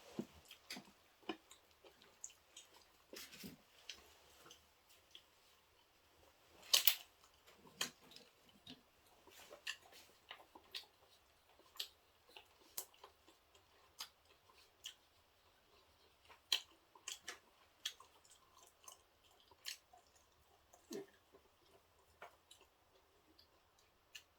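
Faint eating sounds: chewing with scattered light clicks and taps, and one louder clack about seven seconds in.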